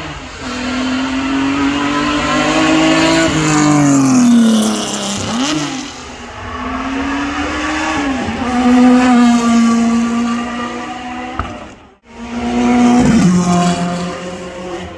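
Performance car engine at high revs, pitch held steady then dropping and rising again several times, with a haze of tyre noise; the sound breaks off abruptly about twelve seconds in and picks up again on another engine pass.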